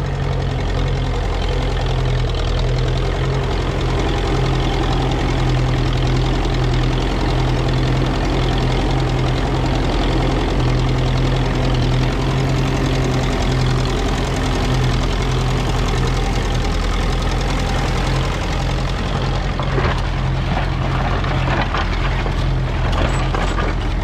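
Ferguson TE20 tractor's four-cylinder engine, running on TVO, running steadily, with a few knocks in the last few seconds.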